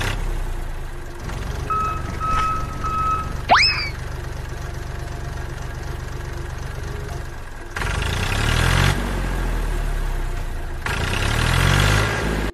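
Diesel tractor engine running steadily, with two short horn beeps about two seconds in and a quick rising whistle just after. The engine gets louder about eight seconds in.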